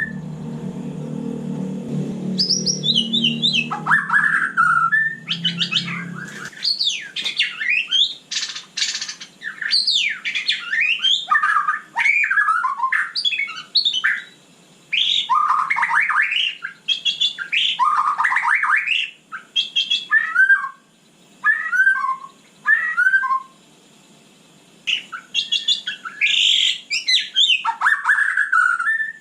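White-rumped shama singing a varied run of loud whistled phrases, slurred notes and quick chattering notes, broken by a few short pauses. A low hum sits underneath for the first six seconds, then stops.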